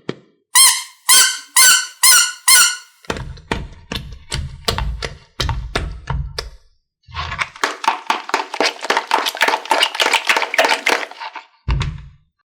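Slime being squeezed and stretched by hand: about five squeaks half a second apart, then low squishing thuds, then a long run of fast crackling pops from air pockets that stops near the end.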